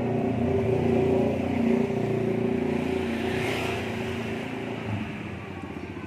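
Motor vehicle engine running close by, steady, loudest in the first two seconds and then slowly fading.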